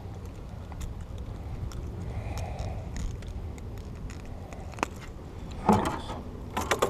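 Wind rumbling on the microphone, with scattered small clicks and taps from handling close by.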